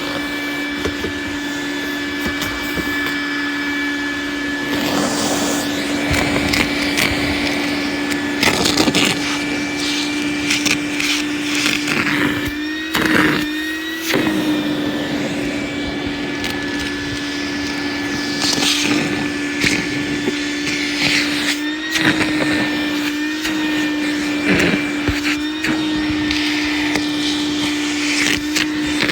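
Vacuum cleaner running steadily with its motor whine, the pitch dipping briefly several times as the intake catches debris. Scraps of paper, trimmer line and duct tape rattle and crinkle as they are sucked up, in short bursts every few seconds.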